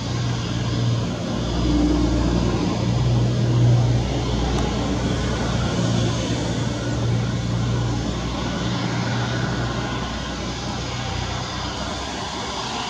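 Airbus A320-251N's twin CFM LEAP-1A turbofans running at taxi power as the airliner rolls and turns on the runway: a steady jet rush with a low hum, swelling a little in the first few seconds and then easing.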